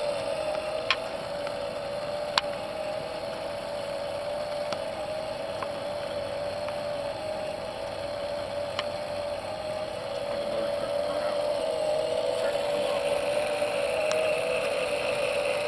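Electric motors of a motorized fire tornado rig running with a steady hum whose pitch wavers slightly, growing a little louder after about ten seconds, with a few faint clicks.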